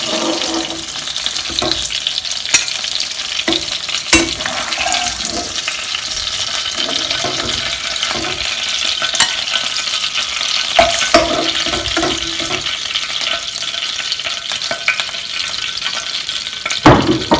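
Hot coconut oil sizzling in a nonstick pan around pieces of pan-fried sea bass, with scattered clicks and scrapes as a spatula lifts the fish out against the pan.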